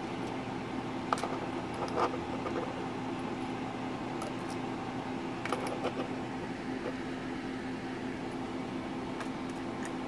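Electric fan running with a steady hum, with a few light clicks and taps over it.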